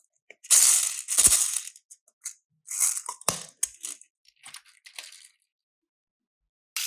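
Slime and clay being squished and mixed, a series of short crackling, crunching squelches with gaps between them. A bright ringing tone starts just at the end.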